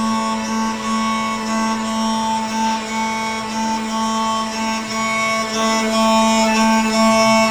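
CNC router spindle milling PA11 aluminium with an 8 mm single-flute end mill at a feed of F4000: a steady, loud whine of several constant pitches, strongest a low hum, growing a little louder near the end.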